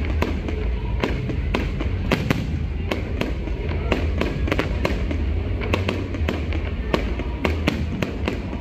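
Aerial fireworks bursting overhead: rapid sharp cracks and pops, several a second, with a steady low rumble underneath.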